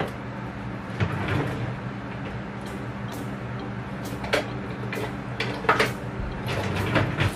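A kitchen drawer being pulled open and utensils knocking and clattering inside it as someone rummages through them: a string of separate clicks and knocks over a steady low hum.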